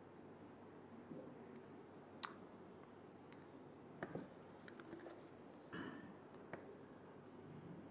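Near silence: quiet room tone with a few faint, scattered clicks and taps of light handling at a desk.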